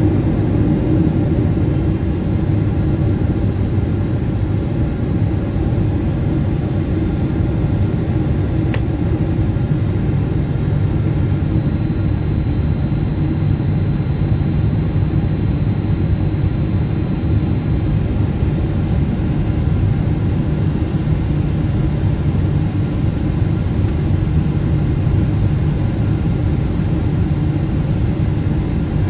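Steady cabin drone of a Boeing 777-200ER on its descent to land, heard beside the wing: engine and airflow noise, low and even, with a faint high whine and two light clicks about 9 and 18 seconds in.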